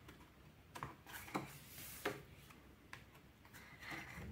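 Sheets of a patterned paper pad being turned and handled: a few faint, short paper taps and rustles at irregular intervals, with a slightly longer rustle near the end.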